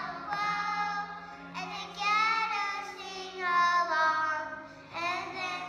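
A group of kindergarten children singing a song together, with steady held notes of an instrumental accompaniment beneath the voices.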